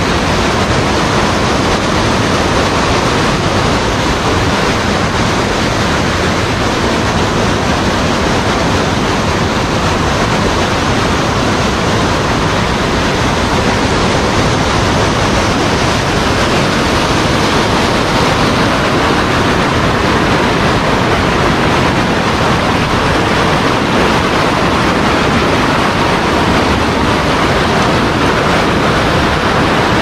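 Creek water rushing over boulders in a whitewater cascade, a steady, loud rush that does not change.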